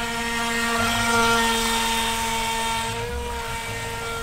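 Remote-control speedboat's small electric motor running with a steady high whine, swelling a little about a second in and easing off near the end.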